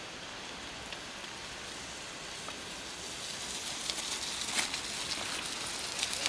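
Mountain-bike tyres crackling and crunching over a loose gravel and dirt track, growing louder from about three seconds in as the bike comes close, over a steady hiss.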